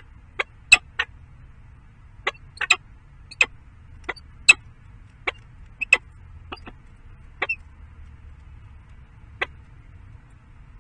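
Peregrine falcon pecking in the nest-box gravel, small stones clicking sharply about a dozen times at an uneven pace, over a faint steady low hum. The clicks stop near the end.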